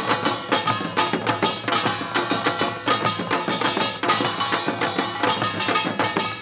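Korean samul nori percussion ensemble playing a fast, dense rhythm: small brass kkwaenggwari gongs clanging over janggu hourglass drums.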